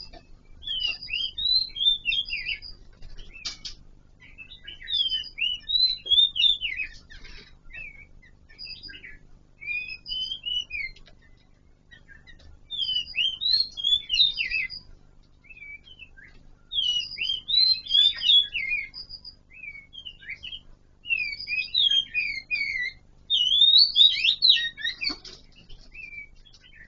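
Kon Ka Kinh laughingthrush singing: bouts of rapid, varied whistled phrases two to three seconds long, repeated every few seconds with short pauses between, the last bout the loudest.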